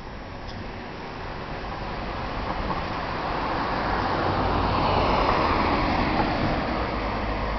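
A car approaching along the road, its tyre and engine noise growing steadily louder.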